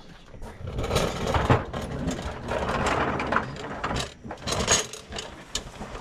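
Irregular clanks, knocks and scraping of metal parts and tools being handled during work on a truck transmission.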